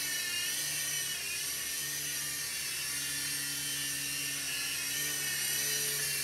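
Small electric RC helicopter (UDI/RC U12S) in flight, its motor and rotors giving a steady high-pitched whine that wavers slightly in pitch as the throttle is adjusted.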